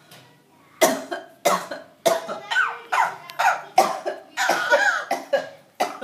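Repeated coughing: about ten short coughs in quick succession, each starting sharply and trailing off in a voiced rasp.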